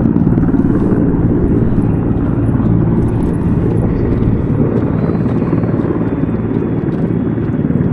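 A motor running at a steady speed: a continuous low hum that holds one pitch.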